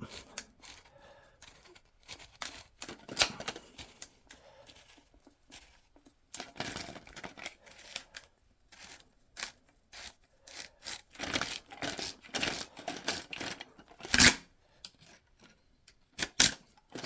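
Irregular plastic clicks, scrapes and rattles as the parts of a new adjustable toilet fill valve are handled, with its lock nut pulled up for height adjustment. There is a sharp click about fourteen seconds in and another near the end.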